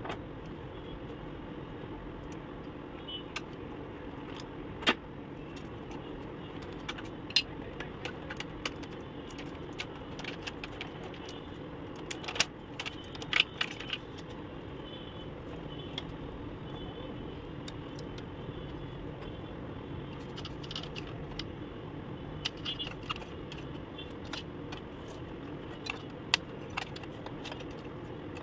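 Scattered small plastic clicks and rattles as the ink tubes and ink damper parts of an opened Epson L130 ink-tank printer are handled, over steady background noise.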